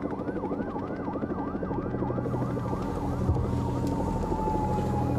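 Police siren wailing in a rapid up-and-down yelp, about three swoops a second, with a second long tone that slowly falls in pitch from about halfway through.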